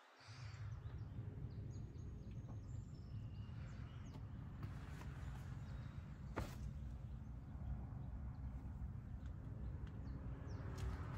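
Honda Civic SiR's 1.6-litre B16A DOHC VTEC four-cylinder idling steadily, heard from inside the cabin. Birds chirp faintly, and there is a single click about six and a half seconds in.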